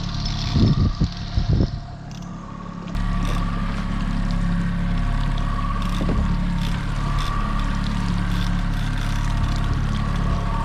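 A boat motor running steadily at trolling speed, with a few loud knocks about half a second to two seconds in.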